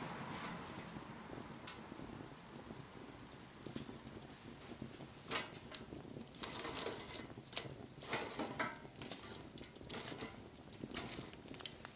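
Wood fire crackling, with irregular sharp pops and snaps, the loudest a little past the middle.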